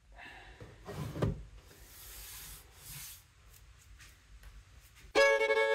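Quiet handling noises: soft rubbing and a knock about a second in. Loud music starts near the end.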